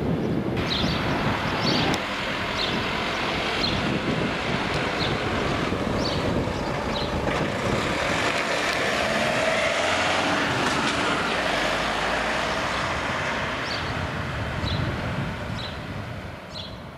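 Renault Master box van driving past and pulling away down the street, its engine and tyres loudest midway and fading near the end.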